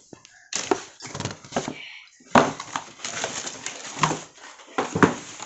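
Packaging being rummaged through in a laptop box: rustling and crinkling with several sharp knocks as items are handled and lifted out. The loudest knock comes about two and a half seconds in.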